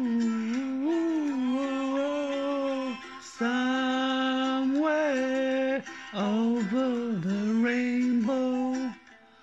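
A man singing long, held notes in phrases a few seconds long, with brief breaks between them and a falling, wavering stretch about six seconds in.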